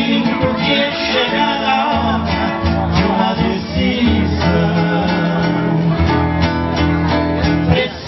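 Two acoustic guitars playing the instrumental introduction of a Brazilian sertanejo song, with a steady bass line underneath.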